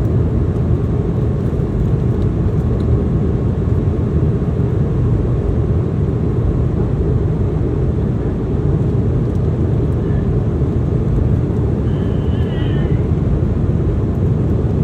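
Steady cabin noise inside a Boeing 717-200 airliner in flight: a low, even rumble of airflow and its rear-mounted Rolls-Royce BR715 turbofans.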